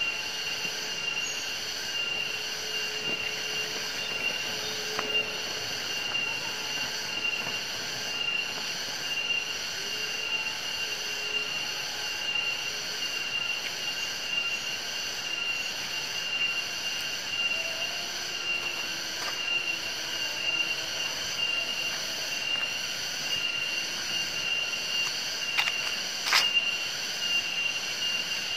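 Steady, high-pitched drone of an insect chorus, unbroken throughout, with a couple of sharp clicks about 26 seconds in.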